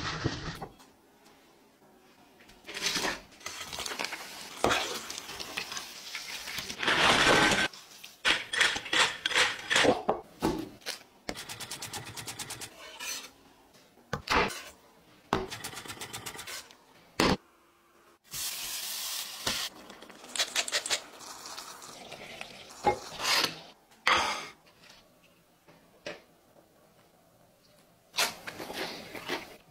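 Food-prep sounds: a stainless steel mixing bowl and utensils clink and scrape as food is tossed in flour, with short bursts of rustling and sizzling noise and a quick run of taps about twelve seconds in.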